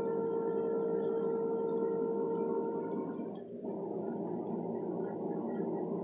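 A steady low droning hum with a faint held tone, dipping briefly about three and a half seconds in. Over it, faint light metallic ticks from a lock pick and tension wrench working the pins of a Falcon 7-pin interchangeable core.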